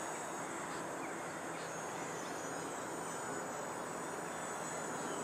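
Multirotor drone flying at a distance: a steady, even hiss with a constant high-pitched whine over it.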